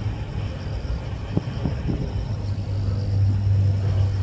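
Jet engines of a Boeing 787-9 airliner rumbling low and steady on the runway at the start of its takeoff, growing somewhat louder about three seconds in.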